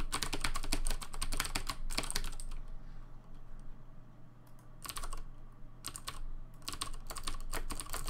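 Typing on a Das Keyboard Professional Model S with clicky Cherry MX Blue switches: quick runs of sharp key clicks, thinning out for a second or two in the middle, then coming back in short bursts.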